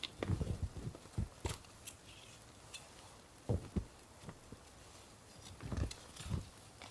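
Irregular soft thuds and knocks in short clusters, a few seconds apart.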